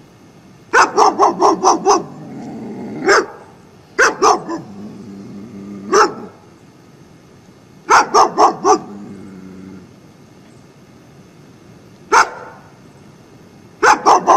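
German Shepherd barking aggressively at a person. The barks come in quick volleys of three to six, with single barks between the volleys.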